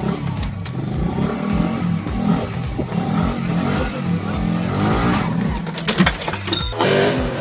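Small motorcycle engine revving unevenly as the bike is ridden at a bus's entry steps, with a clatter of knocks about six seconds in as it lurches up into the doorway.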